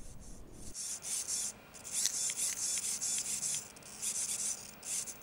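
An electro-mechanical haptic squeeze device whirring with a high, raspy sound in several short stretches as its spring-loaded aluminium pressure plates are squeezed and let go.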